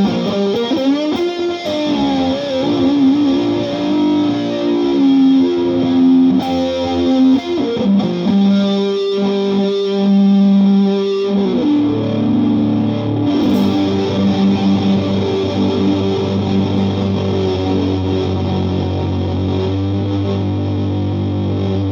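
Made-in-Japan Fender Telecaster electric guitar played through a Vox AC15 amp with distortion and effects pedals: notes that bend and waver for the first half, then a chord held and ringing on from about halfway through.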